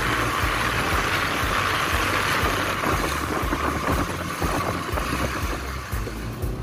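Wind rushing over the microphone of a moving motorbike, with the engine's low rumble and buffeting thumps underneath.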